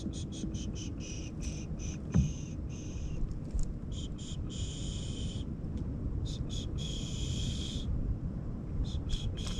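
A high, buzzing animal call, first repeated in quick short pulses, then drawn out in longer buzzes of about a second each. It sits over a steady low background rumble, and there is a soft knock about two seconds in.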